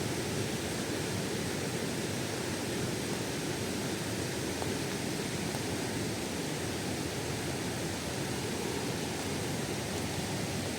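Waterfall's water rushing and splashing in a steady, even roar-like rush.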